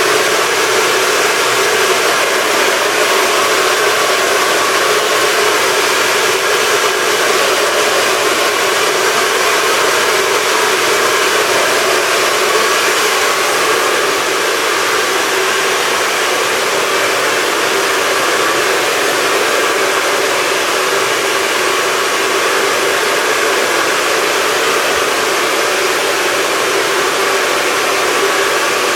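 Hand-held hair dryer running steadily: an even rush of air with a faint constant hum under it.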